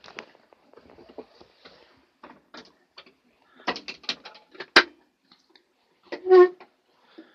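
Clicks, rattles and clunks of an IMT 539 tractor's cab controls being handled with the engine not yet running, including one sharp metallic clunk a little past halfway. Near the end comes a short, loud pitched squeak.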